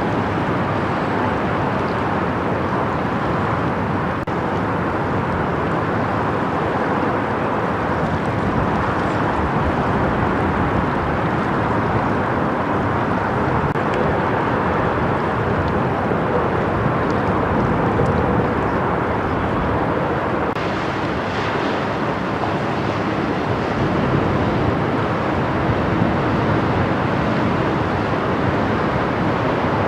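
An inland cargo ship on the Rhine, its diesel engine running as a steady drone mixed with the rush of water, unbroken throughout.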